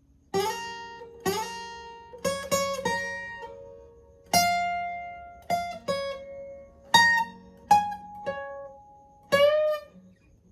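Guitar tuned a half step down, played clean: a slow lead phrase of about a dozen picked single notes and double stops, each left to ring. A few notes slide up into pitch, the clearest near the end.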